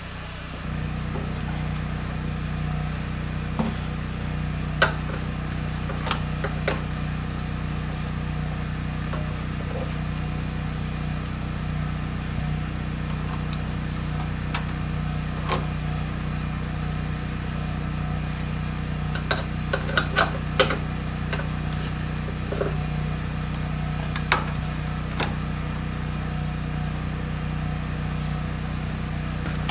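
An engine running steadily with a low, even hum, with scattered short clicks and knocks over it.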